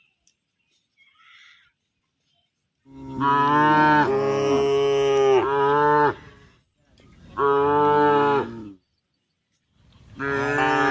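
Cow mooing three times: a long, loud moo that bends in pitch about three seconds in, a shorter moo, and a third beginning near the end.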